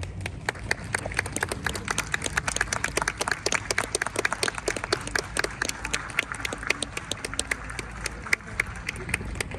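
Audience of spectators applauding at the end of a performance, many separate hand claps overlapping unevenly.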